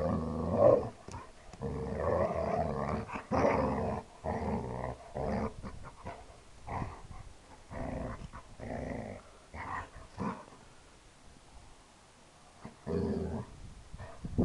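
Two dogs play-fighting, a lurcher and a German shorthaired pointer puppy, growling. There is a dense run of growls over the first few seconds, then shorter growls on and off, a lull, and one more growl near the end.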